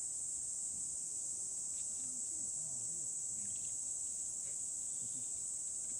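Steady, high-pitched insect chorus, an unbroken chirring that does not change. Faint voices are audible far below it.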